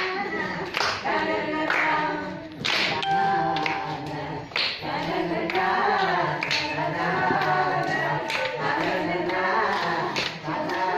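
A group of women singing together without instruments as they dance in a circle, with hand claps breaking in every so often.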